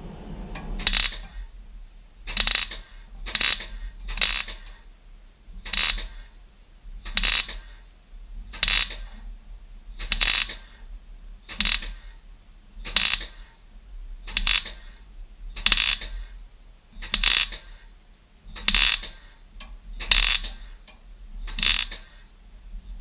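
A welder laying short stitch welds on thin car body steel: about sixteen crackling bursts of about half a second each, one every second and a half or so, as the valance edges are tacked over a copper backing piece.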